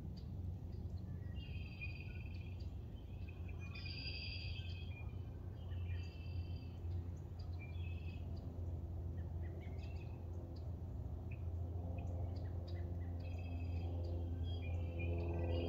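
Birds singing, short chirping phrases every second or two, over a steady low hum. Low steady tones swell in near the end.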